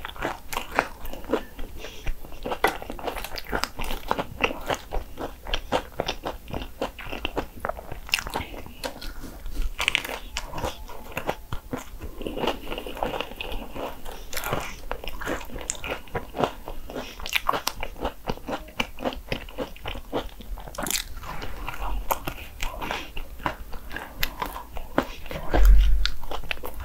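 Close-up biting and crunchy chewing of a crisp Hong Kong egg waffle, a steady run of crackling crunches, with a low thump near the end.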